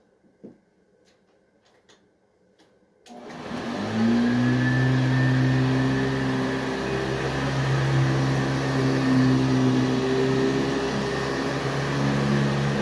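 1977 Hoover/JCPenney Boxtop Convertible upright vacuum cleaner switched on about three seconds in: its motor spins up with a rising whine over about a second, then runs steadily.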